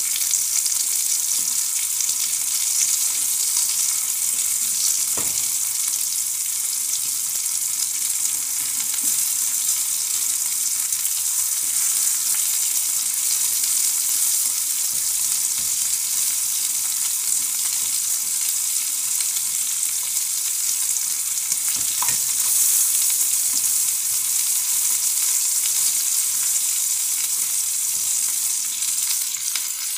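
Sliced calabresa sausage sizzling in hot oil in an aluminium frying pan, with a couple of clinks of a fork against the pan as the slices are turned.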